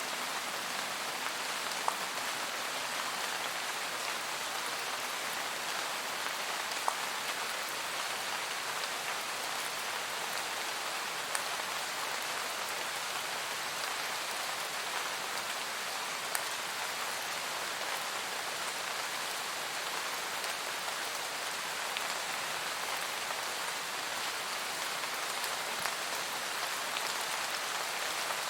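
Forest rain shower: steady rain falling as an even hiss, with a few louder single drops ticking now and then.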